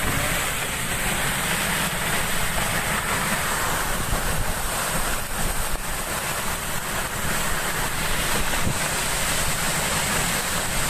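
Steady rushing noise of strong wind and heavy rain, with wind buffeting the microphone.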